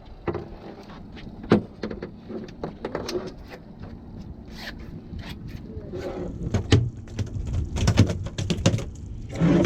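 Irregular knocks, clicks and scrapes of things being handled, getting busier and louder in the second half.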